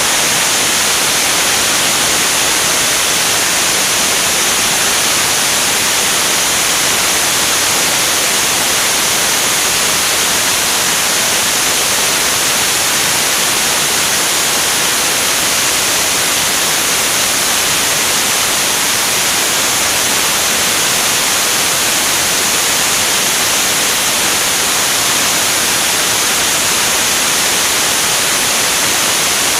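Steady, loud rushing hiss of airflow over a wing-mounted camera on a jet in flight, with no engine note heard.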